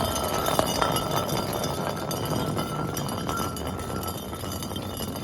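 Glass crunching and clinking: a dense, steady stream of many small cracks and clinks with a faint ringing tone through it.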